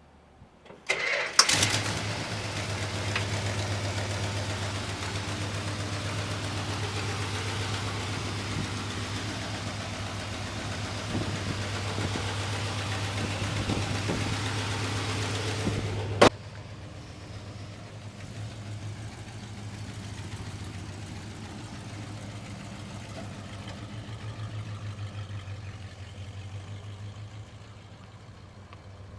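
1973 Plymouth Road Runner's 400 cubic-inch V8 cranking briefly and catching about a second in, then idling steadily. About sixteen seconds in there is a sharp click, after which the idle sounds quieter and duller.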